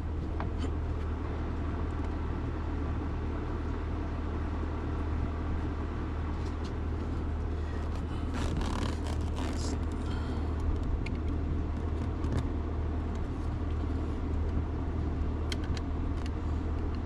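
Steady low mechanical hum with scattered light clicks and clinks of hand tools, a little busier about halfway through.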